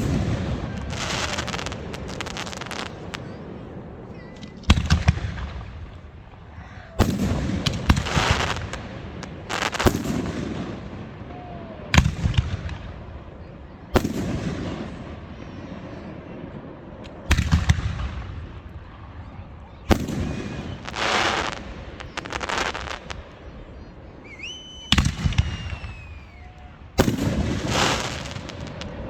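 Aerial fireworks exploding: about a dozen sharp bangs every two to three seconds, each trailing off into crackling and a rolling echo. A short whistle rises and falls near the end.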